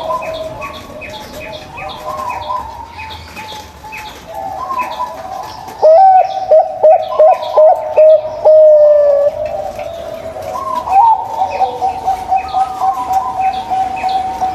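Zebra doves (perkutut) cooing in overlapping rolling phrases. About six seconds in, one gives a loud run of quick clipped notes that ends in a long drawn coo. Steady high chirping runs underneath.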